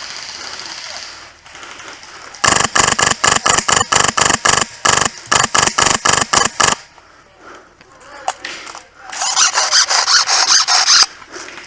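Polarstar Fusion Engine M4 airsoft rifle firing a string of sharp single shots, about six a second, for about four seconds. After a pause it fires a denser, faster burst lasting about two seconds.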